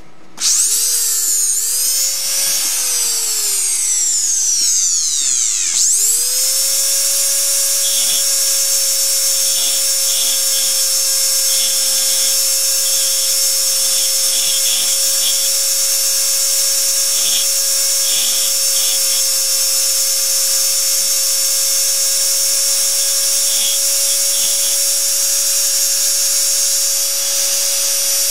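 Motor-driven power engraver running as its graver cuts into a coin. Its whine rises and falls in pitch for the first few seconds, then settles into a steady high whine with faint ticks.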